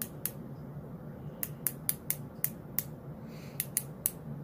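Puregon injection pen's dose knob clicking as it is turned: about a dozen sharp clicks in uneven runs while a 150 dose is dialled up.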